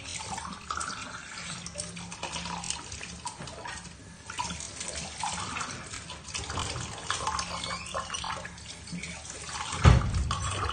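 Tap water running into a stainless steel sink while drinking glasses are scrubbed with a sponge and rinsed, with light clinks of glass. A dull thump near the end.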